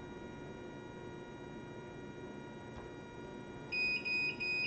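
S&A CW-5200 water chiller running with a steady hum. Near the end, a high-pitched electronic beep starts, broken into several short pulses.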